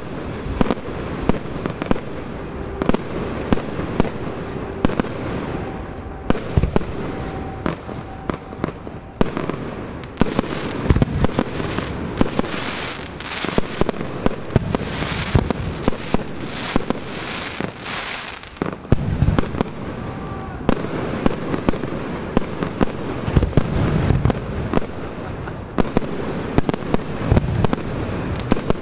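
Fireworks display: aerial shells bursting in quick succession, a steady run of sharp bangs. In the middle stretch the bangs thicken into a dense hissing crackle.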